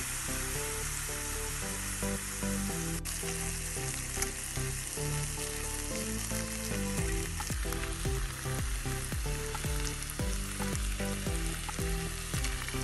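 Beef chuck steaks sizzling steadily as they fry in a frying pan, in butter with a splash of freshly added water. A fork moves and scrapes the steaks in the pan now and then.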